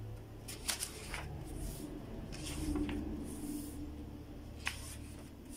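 Thin, cheap newsprint pages of a manga magazine rustling as they are handled and turned, with a few soft taps and clicks from the paper.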